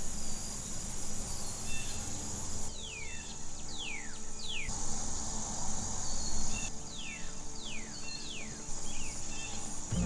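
Outdoor nature ambience: a steady high insect drone, with a bird giving three quick falling whistles and the same three again about four seconds later.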